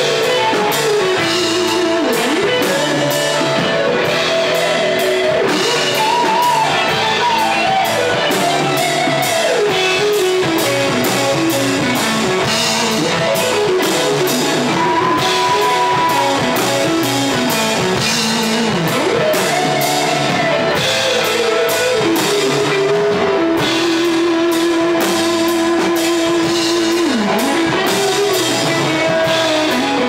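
Live rock band playing an instrumental passage on electric guitars and drum kit, with a lead guitar line that bends and slides between held notes.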